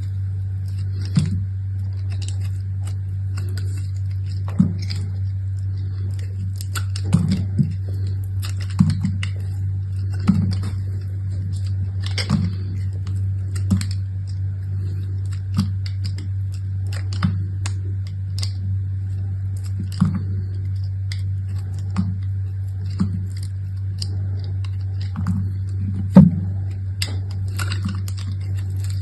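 Hands unpacking soap: scattered clicks, taps and rustles of the packaging and bars being handled, over a steady low hum.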